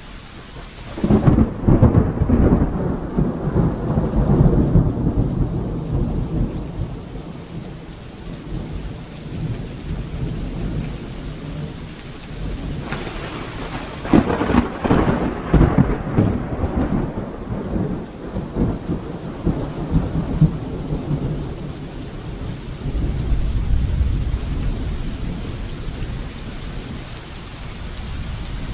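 Steady rain during a thunderstorm. A loud thunderclap about a second in rumbles on for several seconds, a second sharp crack about halfway through rumbles on, and a lower rumble comes near the end.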